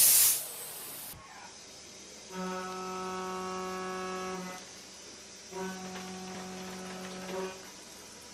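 CNC milling machine running: a steady pitched hum at the same pitch each time, sounding for about two seconds at a stretch, twice, with quieter gaps between. A loud hiss cuts off right at the start.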